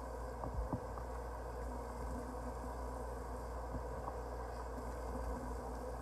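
Bathroom tap running steadily into the sink, with two light knocks just under a second in.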